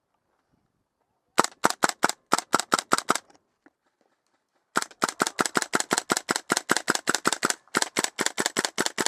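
Airsoft gun firing two rapid strings of sharp shots, about seven a second: a short string of about a dozen, a brief pause, then a longer string of about thirty.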